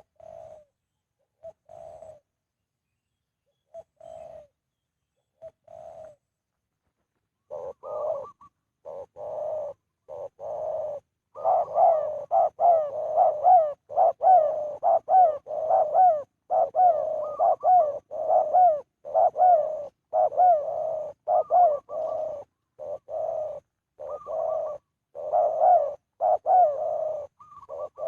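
A caged dove cooing. A few short, separate calls in the first six seconds, then from about eight seconds a long run of rapid, repeated coos.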